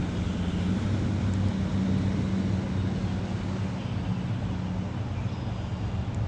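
A steady low engine drone over a continuous rushing hiss.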